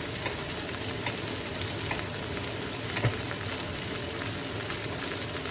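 Chicken pieces frying in hot oil in a pan, a steady sizzle as they brown, with one faint knock about three seconds in.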